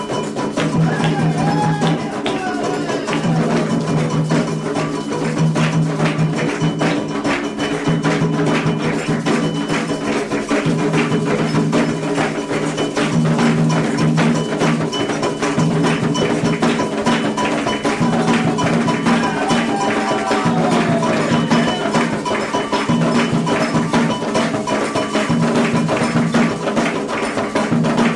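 Candomblé ritual music: hand drums and a metal bell beating a steady, fast rhythm, with a group of voices singing a chant over it.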